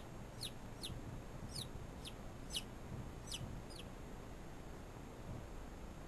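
Chicken chick peeping during a hatch: about eight short, high peeps, each falling in pitch, in quick succession over the first four seconds, then stopping.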